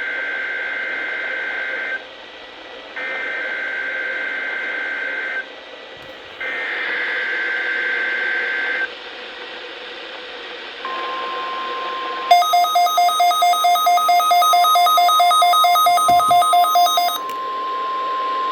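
Three bursts of SAME digital header data, the buzzy two-tone screech of an emergency alert message, followed about eleven seconds in by the steady 1050 Hz NOAA Weather Radio alarm tone. About a second after the tone starts, a loud electronic alarm beeps over it at about three to four beeps a second for roughly five seconds, then stops while the tone carries on over faint radio hiss.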